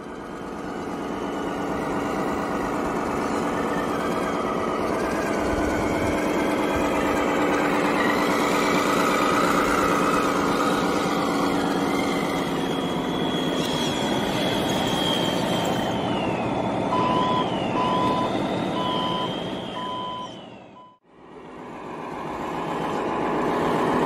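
Heavy truck engine running steadily. Over the last third a reversing alarm beeps about one and a half times a second for several seconds, then the sound fades out briefly and comes back.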